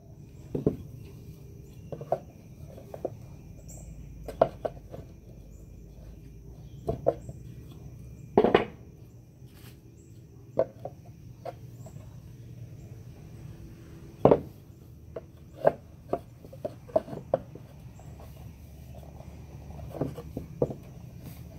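Wooden boards knocking and tapping together as they are handled and fitted into a small box: irregular sharp knocks, two of them louder, about a third of the way in and again past the middle.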